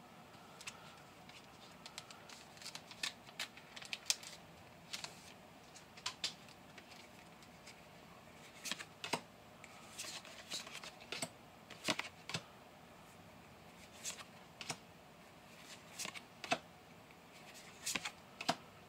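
Pokémon trading cards handled in the hand, slid and flipped one behind another, giving faint irregular clicks and snaps of card stock.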